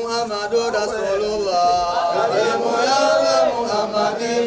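Male voices chanting an Islamic devotional song in long, wavering held notes.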